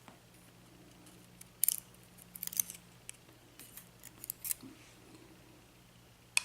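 Small metal lock parts clicking and clinking in irregular little clusters as the upper pins and springs are taken out of a Baldwin lock cylinder during disassembly.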